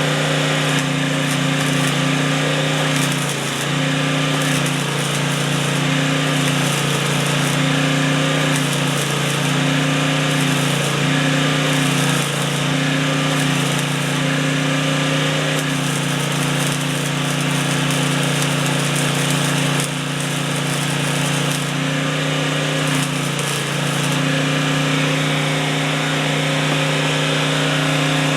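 Arc welding on an exhaust pipe: a continuous crackling buzz with a steady hum underneath, nearly unbroken, dipping only briefly a couple of times.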